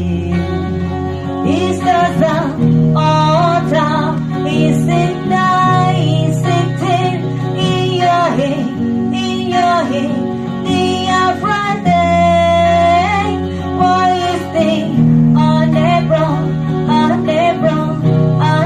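A song: a sung melody with vibrato over guitar accompaniment and sustained low chords.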